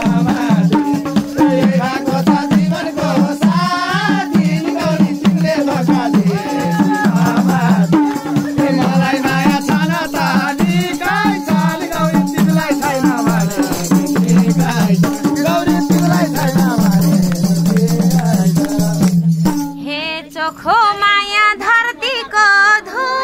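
Live Nepali lok dohori folk music: tambourine jingles shaken in a fast, dense rhythm over a steady low drone, with singing voices. About 19 seconds in the music stops and a woman's voice carries on alone.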